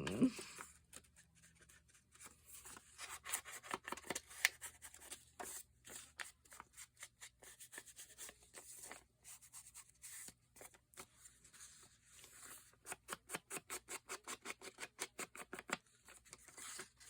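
Faint sounds of paper being handled and worked by hand: rustling and rubbing with scattered clicks, then a run of quick, even clicks, about four a second, for several seconds near the end.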